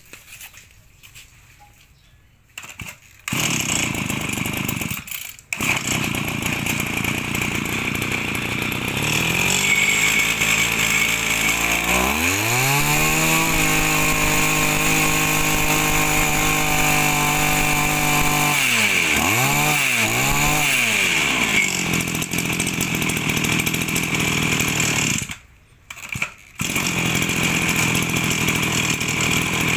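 A used Japanese G2KM brush cutter's 23cc two-stroke engine running. It starts about three seconds in and runs at idle, then is revved up to a high, steady scream for several seconds. After that it is blipped twice and drops back to idle. The sound breaks off briefly twice.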